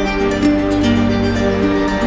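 Background music: a gentle melody of plucked strings over sustained notes.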